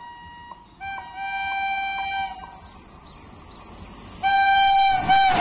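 Indian Railways WAP-class electric locomotive's horn sounding as the train approaches: a held, fainter blast of about a second, then after a pause a much louder, longer blast starting about four seconds in. The rumble of the passing train begins right at the end.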